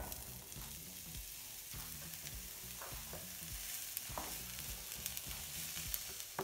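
Diced onions sizzling in hot olive oil in a nonstick frying pan, a steady hiss, with a wooden spoon stirring them and scraping now and then against the pan.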